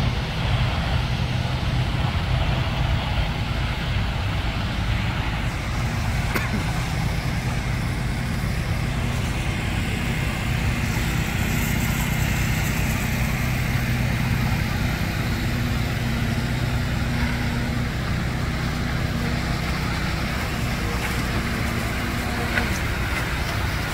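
Diesel engines of concrete mixer trucks running steadily while they discharge, a continuous low even hum.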